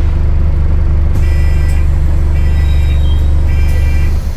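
Alexander Dennis Enviro400H MMC hybrid double-decker bus heard from inside the passenger saloon: a loud, steady deep hum from its drivetrain that cuts off suddenly near the end. From about a second in, a high electronic beep sounds three times, about once a second.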